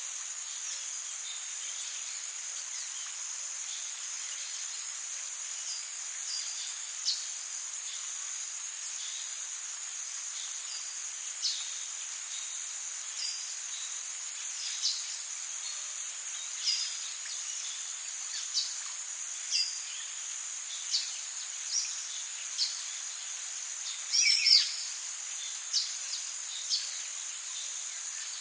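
Tropical rainforest ambience: a steady high insect drone over an even hiss of rain, with short high bird chirps every second or two. The loudest is a longer falling call about 24 seconds in.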